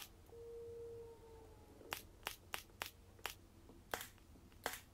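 Cordless pin nailer firing pins into wood trim: a string of about seven sharp, short clicks, most of them a third of a second to a second apart in the second half. A brief steady hum sounds in the first second.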